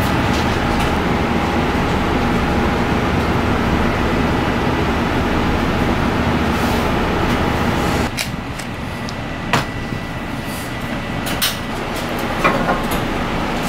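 Steady rushing machinery noise with a faint hum, like a kitchen ventilation fan. About eight seconds in it cuts abruptly to a quieter background with a few sharp clicks and knocks.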